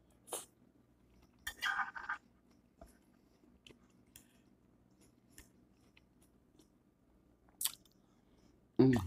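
Close-up eating sounds: a person chewing a mouthful of collard greens, with wet mouth smacks and a few sharp clicks, the loudest cluster about two seconds in. A short low hum of the voice right at the end.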